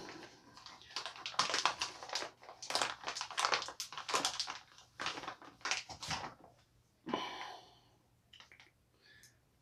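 Clear plastic packaging bag crinkling and tearing as it is pulled open by hand: a dense run of quick crackles, thinning after about six seconds to a few scattered rustles.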